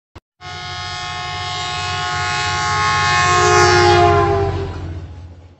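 A sustained many-toned horn that swells for about four seconds over a low rumble, then slides slightly down in pitch and fades away, like a passing train horn used as an intro sound effect.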